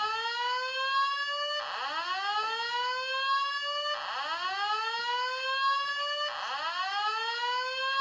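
Simplex 4903-series fire alarm speaker strobe sounding a slow-whoop evacuation tone: a pitch that rises over about two and a half seconds and then starts again, repeated about three times.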